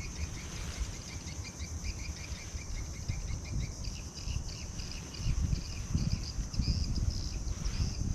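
Insects droning steadily in a high chorus with rapid repeated chirps, under a low rumbling noise that grows louder from about five seconds in.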